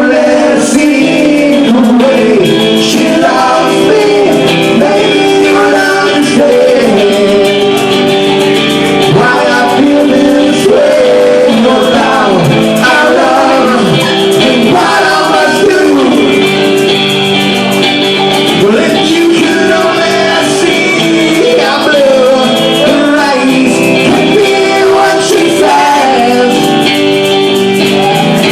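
Rock song with guitar: full band music, loud and steady, with a bending lead melody line over it.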